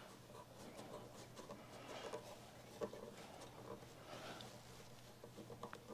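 Faint handling sounds of bar clamps being adjusted on a glued-up wooden board: quiet rubs and light clicks, one a little sharper about three seconds in, over a low steady hum.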